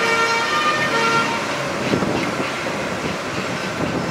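Fire engine horn giving two steady blasts in the first second and a half, followed by the diesel engine running as the appliance pulls away.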